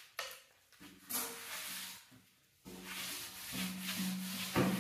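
Saker 12V cordless buffer/polisher running with an 80-grit hook-and-loop disc, sanding a wooden tabletop with a steady motor hum and a scratchy rubbing hiss. It runs for about a second, stops briefly, then starts again about two and a half seconds in and keeps running.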